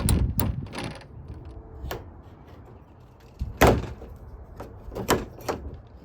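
Knocks and clatters of plastic shed panels and parts being handled and fitted together. A cluster of knocks comes at the start, single ones near two seconds, the loudest about three and a half seconds in, and two more around five seconds.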